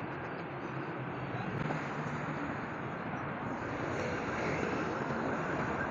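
Steady noise of busy road traffic, cars and motorbikes passing on a multi-lane road.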